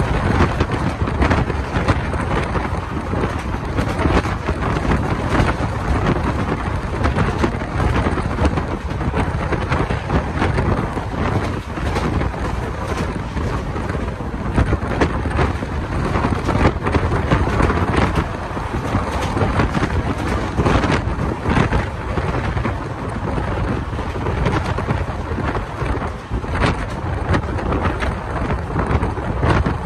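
Wind buffeting the microphone held out of a moving passenger coach's window, over the steady rumble of the Indian Railways train running along the track.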